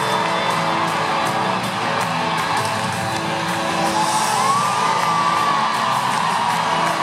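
Live rock band with drums, guitars and keyboards playing a song at full volume, heard from within the arena crowd, with fans whooping over the music.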